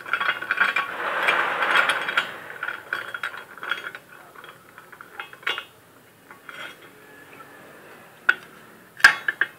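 Metal clicking and rattling from a homemade steel drill vise being worked by hand: dense ratchety ticks for the first couple of seconds, thinning to scattered clicks, then a few sharp metal clinks near the end.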